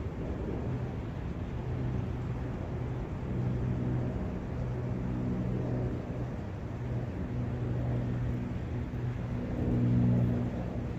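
Outdoor ambience of low, rumbling wind noise with a steady low hum running through it, swelling briefly near the end.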